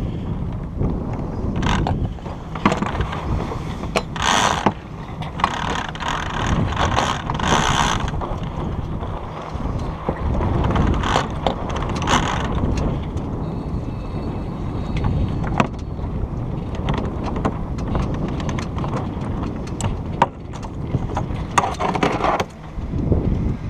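Wind buffeting the microphone and water running along the hull of a small sailboat as it comes about, with several bursts of rustling sail and sheet noise and scattered clicks from the rigging and winch.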